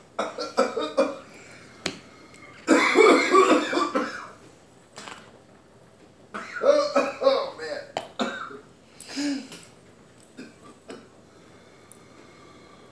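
Several short bursts of wordless, muffled voice sounds, with pauses between.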